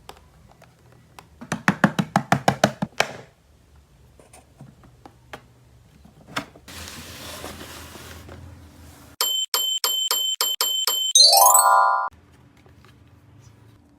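Electronic sound effect from a battery-powered Peppa Pig toy: a fast, steady beeping followed by a quick rising jingle. Before it come a quick run of about nine ringing taps and a short hiss.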